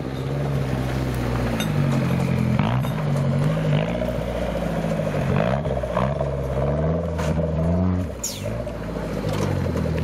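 Off-road competition 4x4's engine revving up and down again and again as it crawls over rocks on a steep climb, with short clicks and knocks from the rocks and a brief drop in engine level about eight seconds in.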